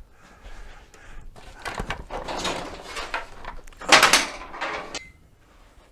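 Rustling and scraping of hands feeling blind for a wiring-harness clip inside a mobility scooter's steering column, with the loudest scrape about four seconds in.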